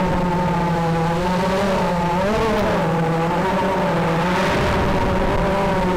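FPV quadcopter's motors and propellers whining steadily in flight, heard close from the drone's own camera. The pitch dips and climbs again about two seconds in as the throttle changes.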